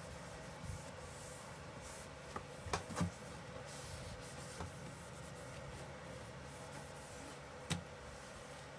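A few light knocks and taps on a shelf as it is cleaned and wiped with a cloth, two close together about three seconds in and one near the end, over a steady low hum.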